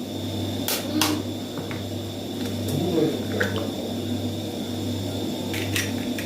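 Eggs being cracked into a bowl: a few sharp taps of shell, about a second in and again near the end, with wet squishing as the contents drop in.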